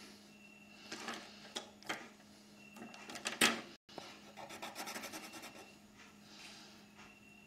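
Drawing instruments handled on a desk, a ruler knocking and clicking against the paper and tabletop as it is moved into place. Scattered light knocks, then a quick run of small clicks about four seconds in.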